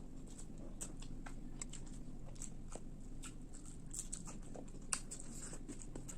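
Close-miked chewing and mouth sounds of someone eating fish and rice: many small wet clicks and crunches, with one louder click about five seconds in.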